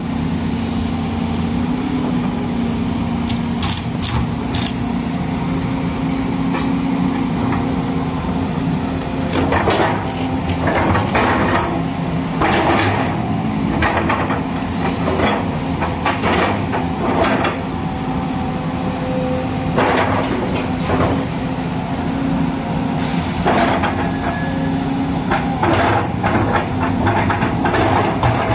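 Volvo EC210D excavator's diesel engine running steadily, with clusters of sharp clanks and knocks from the boom, arm and bucket as they are worked, mostly in the middle and latter part.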